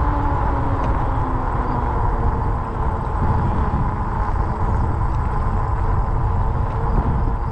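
Riding noise from a fat-tire electric bike on pavement: wind buffeting the camera microphone over a steady tyre hum. A faint whine falls in pitch over the first couple of seconds.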